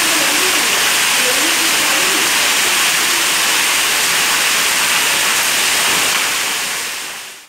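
Storm water pouring in streams through a broken ceiling onto a flooded tiled floor, a steady loud rush that fades out near the end.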